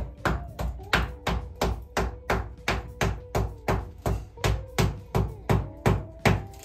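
Hammer blows struck in a steady run of about three a second, about twenty in all, pounding at a firmly fixed fitting to work it loose.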